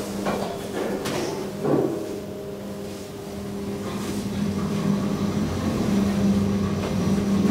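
KONE MonoSpace machine-room-less traction elevator car travelling, heard from inside the cabin: a steady hum that grows slightly louder in the second half, with a knock at the start and another about two seconds in.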